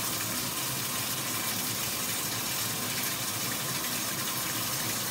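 Bathroom water running steadily into the tub, a constant even hiss. It is being run warm before a shower.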